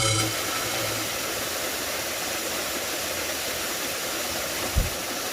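Steady, even rushing noise after background music cuts off right at the start, with one short low thump near the end.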